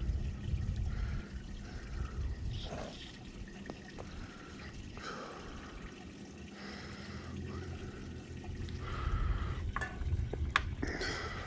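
Water trickling and lapping around a small fishing boat, over a low rumble, with a few sharp clicks near the end.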